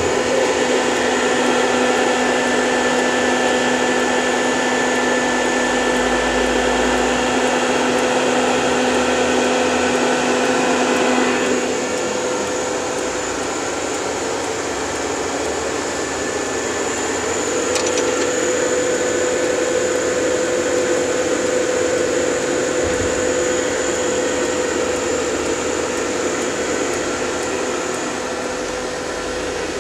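Steady whirring and humming of a powered-up 2007 Hurco VM II CNC vertical machining center, its cooling fans and motors running. About eleven seconds in, one low hum stops and the sound drops a little.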